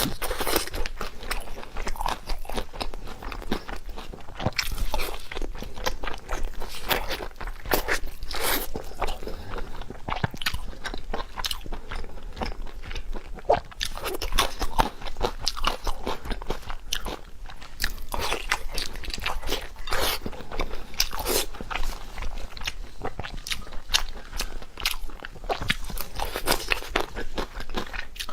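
Close-miked eating sounds: a person repeatedly biting into crunchy food and chewing, with many irregular crunches and crackles.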